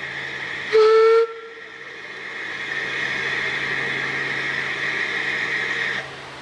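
A steam locomotive's whistle gives one short blast about a second in. Steam then hisses steadily for about four seconds and cuts off suddenly.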